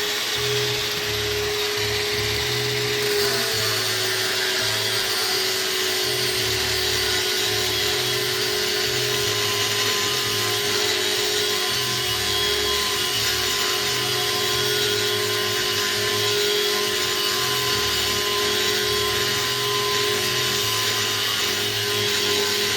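Angle grinder running steadily: a constant high motor whine over a broad hiss, the pitch dipping slightly about three seconds in.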